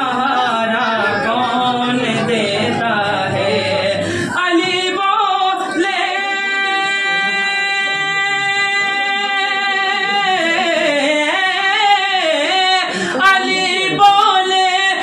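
A man singing a naat unaccompanied: wavering phrases at first, then one long held note for about four seconds, then more ornamented phrases.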